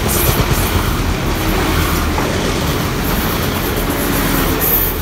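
Translink diesel multiple unit passing close by: a loud, steady rumble of its carriages and wheels running over the rails.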